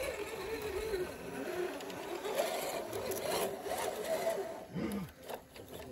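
Small electric motor and gearbox of an RC scale crawler whining, the pitch wandering up and down with the throttle as it crawls.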